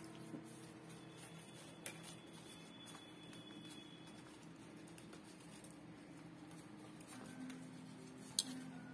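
Faint handling of a cut-paper card piece on a cutting mat, with a light tap about two seconds in and a sharper click near the end, over a low steady hum.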